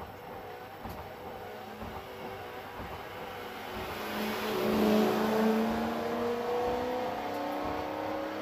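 Race car engine heard from inside a BMW M3 race car's cabin, quieter at first, then getting louder about four seconds in, with the revs slowly rising, over a hiss of water spray on a wet track.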